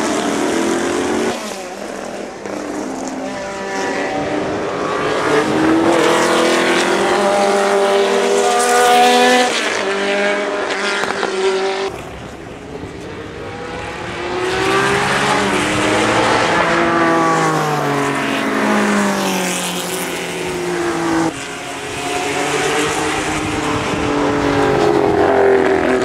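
Historic race cars at speed, among them Porsche 906 Carrera 6s with their 2-litre flat-six engines, revving hard as they pass one after another. The engine pitch climbs through the gears and drops on lifts and downshifts, and the sound changes abruptly about a second in, about twelve seconds in and about twenty-one seconds in.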